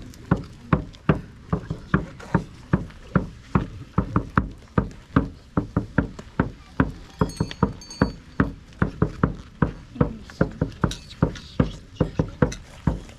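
Percussion beaten in a steady rhythm, about three strokes a second. Two short high ringing tones sound about seven and eight seconds in.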